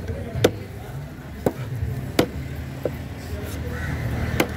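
Large curved fish knife chopping through a longfin trevally fillet into a wooden cutting board: five sharp chops at uneven intervals, about one a second, the fourth lighter than the rest.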